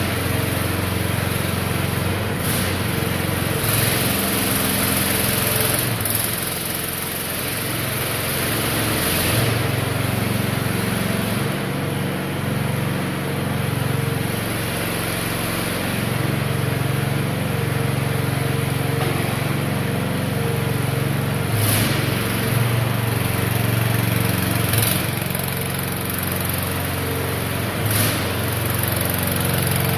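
AGROTK QH13R mini excavator's small engine running steadily, with a few short knocks spread through it.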